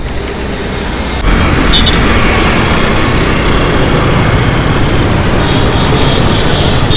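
Wind rushing over the microphone and road traffic noise while riding a bicycle on a busy road; it gets louder about a second in.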